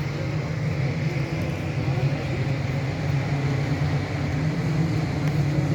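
Engines of tuned 180cc Vespa racing scooters running together in a steady, dense drone.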